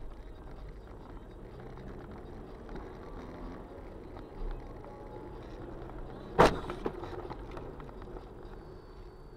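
Car driving, recorded by a dashcam inside the cabin: a steady low engine and road rumble. About two-thirds of the way through there is one sharp knock, the loudest sound, followed by a fainter second one.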